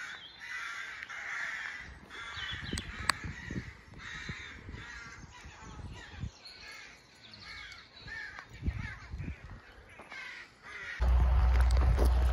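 A group of crows cawing over and over in the trees, many overlapping harsh calls. About a second before the end a louder steady low rumble suddenly takes over.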